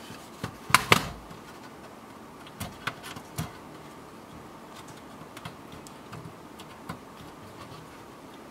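Clicks and light knocks of a thin client's sheet-metal chassis and plastic parts being handled during disassembly. Two sharp clicks come close together about a second in, then a few softer ones around three seconds, with scattered faint ticks after.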